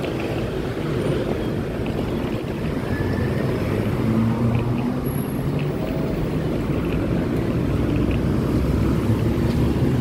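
Street traffic: motorbike and car engines running in a steady rumble, with an engine hum growing a little louder about four seconds in.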